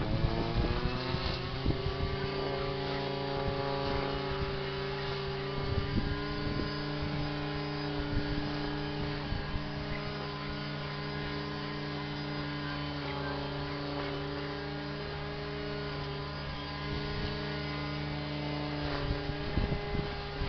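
A vehicle engine idling steadily. Its pitch rises as it settles right at the start, then holds even throughout.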